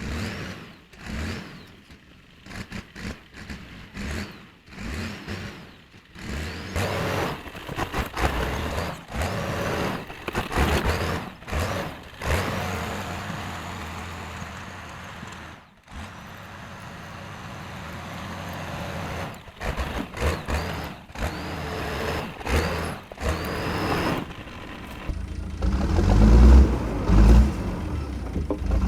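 1979 International TD9 crawler dozer's diesel engine running while the dozer is operated, rising and falling with the work and loudest near the end.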